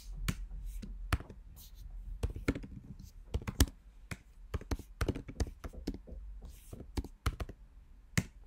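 Typing on a computer keyboard: irregular keystroke clicks, several a second, with a few sharper taps.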